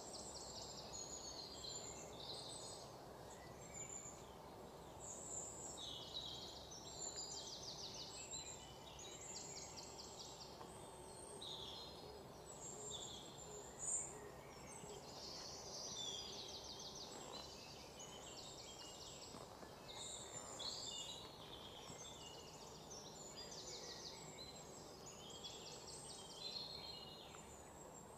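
Birds chirping and calling, with many short calls and fast trills, over a low steady background hiss. A single sharp tap sounds about fourteen seconds in.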